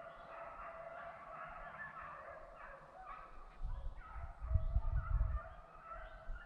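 A pack of deer hounds baying on a running deer trail, many overlapping voices at a distance. A loud low rumble on the microphone sets in about halfway through and lasts a couple of seconds.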